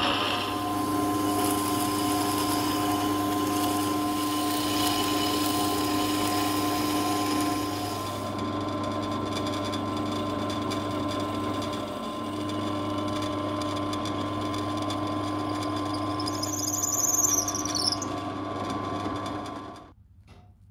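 Small electric woodworking machine running steadily as it spins a little turned wooden knob, with the scratchy hiss of a chisel cutting the wood for the first several seconds. Near the end a short high squeal falls in pitch, and then the sound cuts off abruptly.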